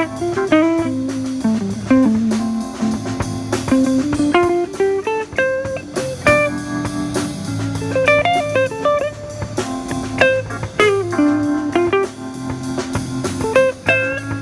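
Live instrumental blues-jazz trio: an electric guitar plays a single-note melody line over a Yamaha drum kit keeping a steady beat and a keyboard.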